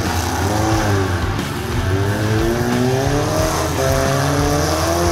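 Demolition derby cars' engines revving, rising and falling in pitch over a steady low drone.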